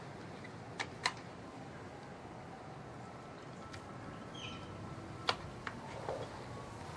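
Moser PCP air rifle being fired at a target: two sharp cracks close together about a second in, then another sharp crack, the loudest, a little past five seconds, with a fainter click soon after.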